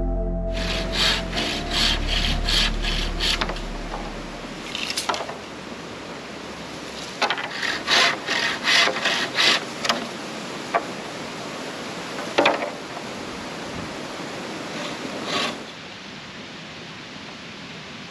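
Hand saw cutting through bamboo in quick back-and-forth strokes, about three a second, in two runs, with a few single sharp knocks of wood on wood in between and near the end.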